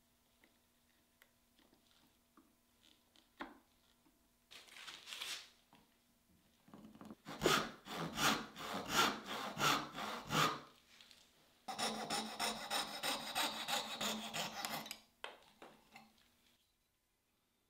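Hand backsaw cutting across a hardwood blank in rhythmic back-and-forth strokes, about two a second, with a short pause and then a second, steadier run of strokes. The sound cuts off abruptly near the end.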